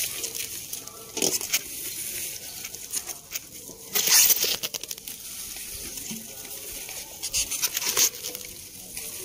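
Thin plastic carrier bag rustling and crinkling in short irregular bursts as it is handled, loudest about four seconds in.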